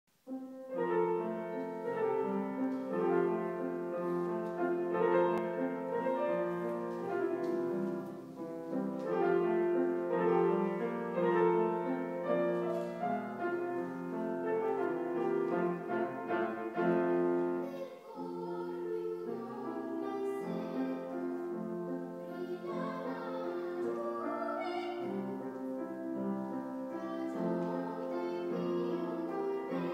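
A woman singing in classical operatic style with grand piano accompaniment.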